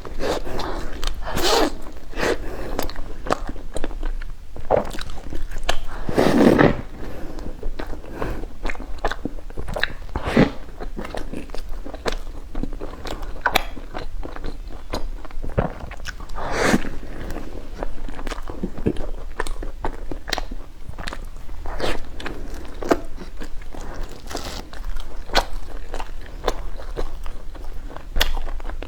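Close-miked eating of a chilled bread puff: bites into its crisp shell with crunching, then chewing with many small crackling clicks throughout and a few louder crunches.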